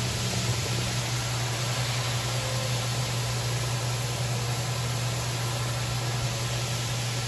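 Steady rushing noise over a constant low hum, as of a motor or machine running without change.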